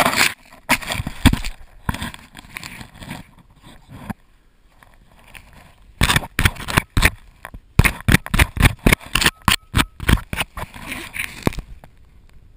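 Handling noise on a small action camera held in a gloved hand: irregular scraping, rubbing and knocks against the camera body, in two busy stretches with a quieter pause in the middle.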